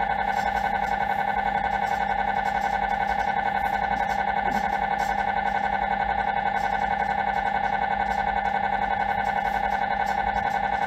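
MRI scanner's gradient coils buzzing through a scan sequence: a loud, steady tone with overtones, pulsing rapidly and evenly.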